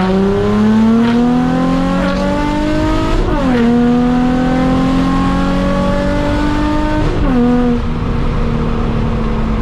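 Nissan Z's V6 engine accelerating hard under full throttle, the revs climbing steadily and dropping with an upshift about three seconds in and again about seven seconds in, then holding steady.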